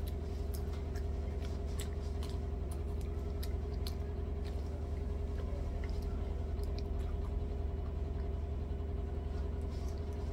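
A Choco Heim wafer stick being chewed, with scattered faint crisp clicks over a steady low hum.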